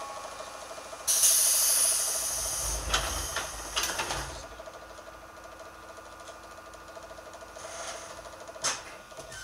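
205 series electric train running: a sudden hiss starts about a second in and lasts some three seconds, with a low rumble and a few knocks from the running gear. Then it settles into a steady, quieter running hum, with one more knock near the end.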